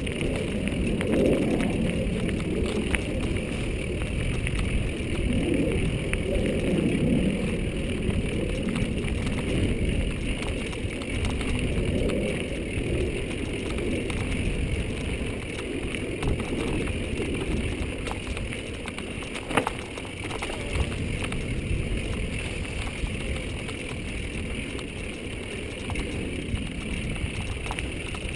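Mountain bike rolling down a dry dirt singletrack: a steady rumble of tyres and rushing air, with scattered small rattles and clicks from the bike and one sharper knock about two-thirds of the way through.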